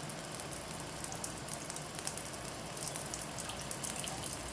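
Steady hiss of running or splashing water, with fine crackling ticks throughout.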